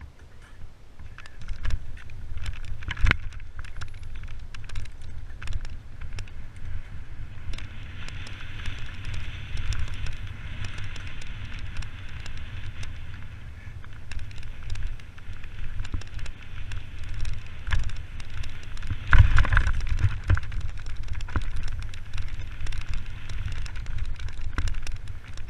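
Mountain bike ridden fast down a dirt trail: tyres running over the ground, with the chain and frame rattling and knocking over roots and bumps, and wind rumbling on the microphone. A cluster of heavy knocks comes about three quarters of the way through, a harder hit.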